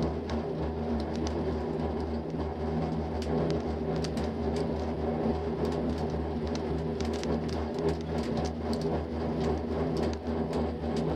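Steady low rumble and hum inside a six-seat gondola cabin riding the haul rope, with frequent irregular light ticks and rattles from the cabin.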